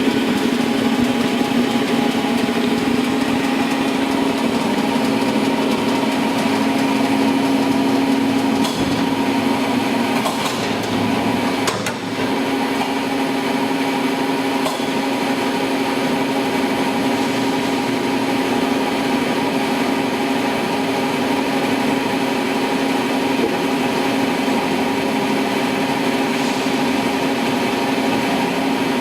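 Blanchard 2242 rotary surface grinder running: a steady machine drone from its 50 hp motor and spinning wheel, with a short knock about twelve seconds in.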